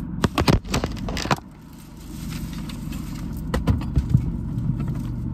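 Clicks and knocks of a phone being handled and set in place, clustered in the first second and a half and again about three and a half seconds in, over a steady low car-cabin hum.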